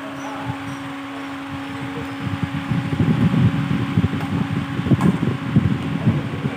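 Steady hum with a rushing, fan-like air noise that turns into heavy, ragged rumbling from about two and a half seconds in. A single sharp crack about five seconds in, likely a racket hitting the shuttlecock.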